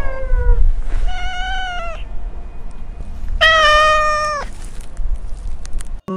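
Cat meowing: three drawn-out meows, each about a second long, the first trailing off downward at the start, the others about a second and three and a half seconds in.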